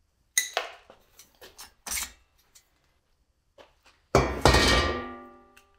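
Light metal clicks and taps, then about four seconds in a loud clatter as the motor's sheet-metal fan cover is set down on the wooden bench, ringing like a pan lid with a tone that dies away over a second or so.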